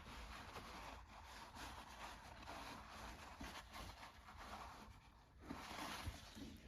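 Faint, irregular rubbing and scuffing of a shop towel wiping out the inside of a snowmobile chain case.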